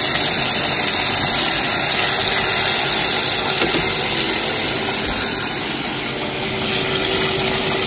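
Breaded chicken pieces deep-frying in a pot of hot oil: a steady sizzle of bubbling oil.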